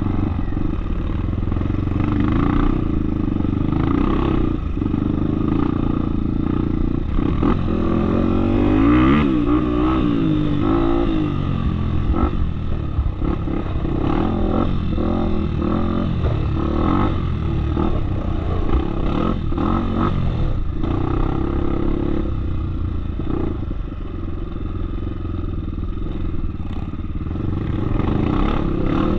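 Off-road motorcycle engine running under way on a trail, its pitch rising and falling with the throttle, most plainly about eight to eleven seconds in.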